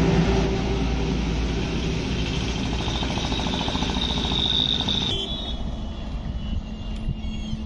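Heavy Tata truck driving past and pulling away, its engine and tyre noise loud at first and slowly fading. About five seconds in, the sound cuts abruptly to quieter road traffic with a faint engine hum.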